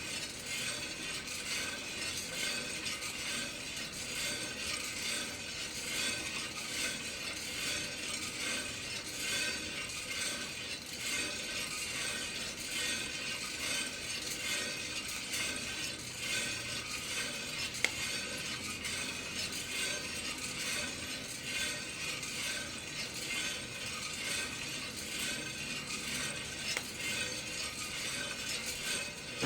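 Kaldi rotary-drum home coffee roaster turning, with coffee beans tumbling in the drum in a steady mechanical rattle. One sharp click stands out about eighteen seconds in.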